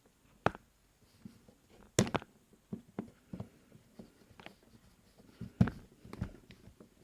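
Scattered light clicks and knocks of handling at close range, with two louder knocks about 2 seconds and 5.5 seconds in.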